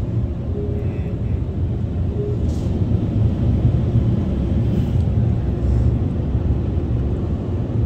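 Onboard dryer blowers of a Ryko Softgloss XS 2 in-bay car wash running, heard from inside the car as a steady low rumble.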